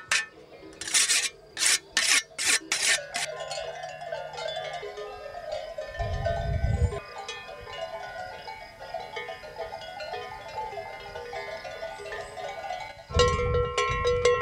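A whetstone rubbed along a scythe blade in a handful of quick rasping strokes, then the ringing of many cowbells on grazing cattle, louder near the end as a belled cow comes close.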